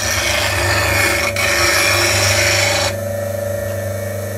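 A turning tool being ground on the aluminium oxide wheel of a bench grinder, a loud steady grinding hiss of steel on abrasive that throws sparks. About three seconds in the tool is lifted off and the grinding stops suddenly, leaving the grinder's motor running with a steady hum.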